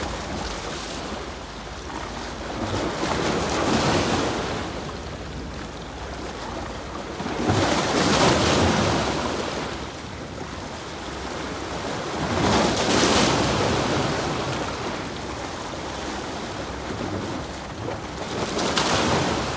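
Sea waves breaking and washing against rocks, the surf swelling up in four surges a few seconds apart.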